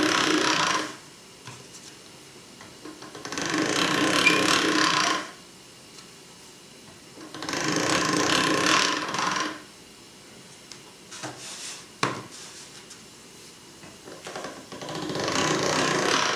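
Hand-cranked pasta machine running as dough is fed through its rollers, in bursts of about two seconds with pauses of a few seconds between, one pass after another to knead the dough smooth. A single sharp click comes about midway.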